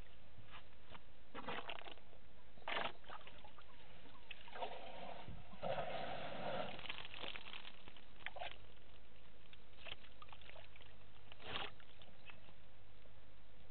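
African elephant bull drinking: water sloshes and splashes as its trunk draws from the pool. There is a longer gush of water about six seconds in, when the trunk is curled up to the mouth, and several short splashes before and after it.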